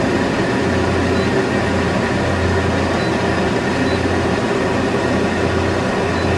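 Steady low drone of running industrial machinery, with an even hiss over a strong low hum.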